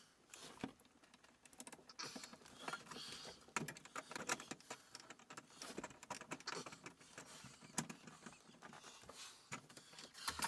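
Hands handling heavy DC battery cables and small terminal hardware at a bus bar: faint, irregular light clicks and taps with rustling.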